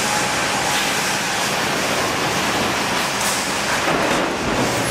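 Sawmill headrig band saw cutting a log as the carriage feeds it through the blade: a steady, dense machine noise.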